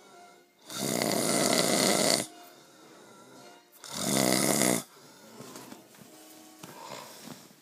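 A man snoring loudly in his sleep: a long snore about a second in, then a shorter one about four seconds in, with quiet stretches between.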